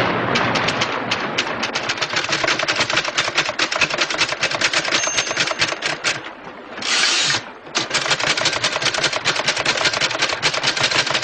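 Mechanical typewriter typed fast, keys clattering in a rapid, steady stream of clicks, broken about seven seconds in by a short hissing burst.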